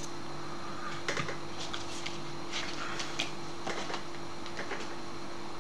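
Scattered light clicks and taps from jumper wires and a potentiometer being handled and pushed into a breadboard, over a steady hum.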